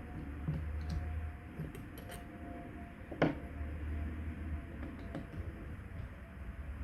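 Light metallic clicks and clinks from a Holley four-barrel carburetor being unbolted and taken apart by hand, with one sharper clack about three seconds in, over a steady low hum.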